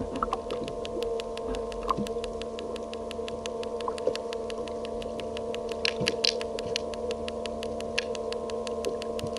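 A steady mechanical hum with several held tones, under an even ticking of about five ticks a second, and a brief hiss about six seconds in.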